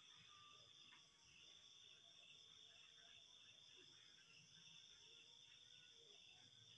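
Near silence, with a faint, steady, high-pitched chirring of insects such as crickets.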